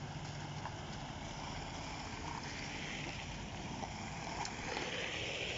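Vehicles driving through shallow floodwater on a road: a low engine hum under the wash of tyres through water, which swells over the second half.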